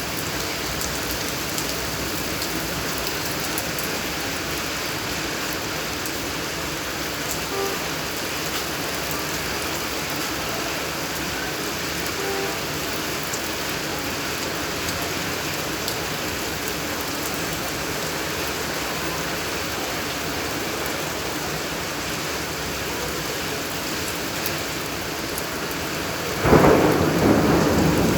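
Steady rain falling, then a sudden rumble of thunder near the end.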